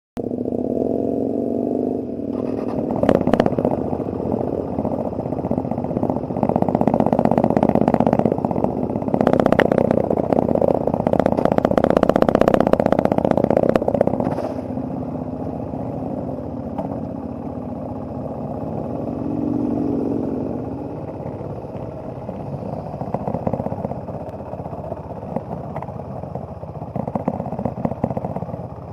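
KTM motorcycle engine running while riding, its note rising and falling with the throttle, louder for several seconds in the middle, then easing off.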